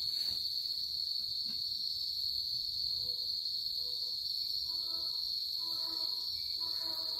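Steady, unbroken high-pitched chorus of crickets chirring in the night.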